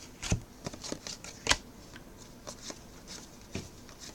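Baseball trading cards being flipped through by hand: a string of short snaps and slides of card on card, the loudest about one and a half seconds in.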